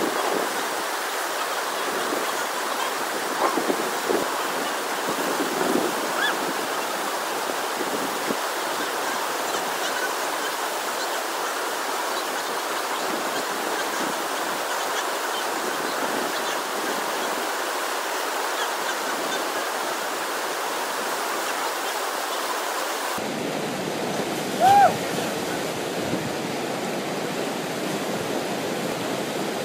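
Whitewater of a standing river surf wave rushing steadily close by, an even hiss of churning water with no let-up. About 25 seconds in a brief, loud pitched call rises over the rush.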